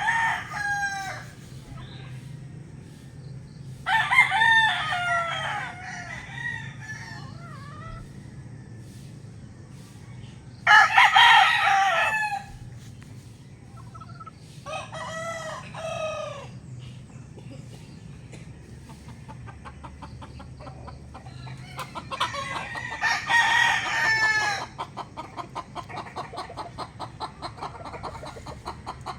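Roosters crowing again and again, about five long crows spaced several seconds apart, from birds on either side answering each other. A fast, even pulsing runs faintly underneath in the second half, over a steady low hum.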